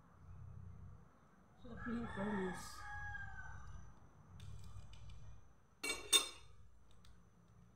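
A rooster crowing once, a single call of about two seconds that rises and then falls away. Two sharp clicks follow about six seconds in.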